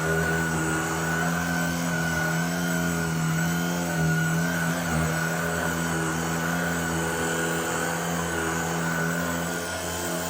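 Shark ICZ300UKT cordless upright vacuum cleaner running at full speed while vacuuming, a steady motor hum with a thin high whine, its pitch wavering slightly as it is pushed about.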